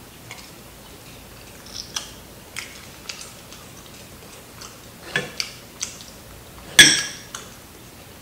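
Scattered sharp crackles and clicks of crispy fried chicken being chewed and handled close to the microphone, with one loud clack near the end.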